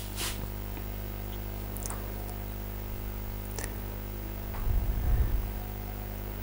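Quiet room tone with a steady low electrical hum and a few faint clicks, and a brief low rumble about four and a half seconds in.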